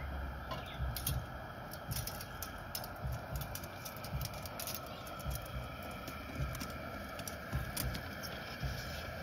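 Metal tongs clicking and scraping irregularly against the inside of an aluminium stock pot and the king crab shells as the steamed legs are gripped and lifted out, over the steady hiss of a propane burner.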